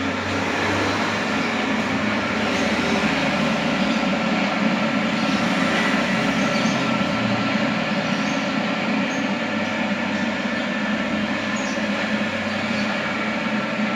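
Full stainless steel centrifugal spinner machine running steadily, its motor and spinning drum giving a constant whirring noise with several steady tones.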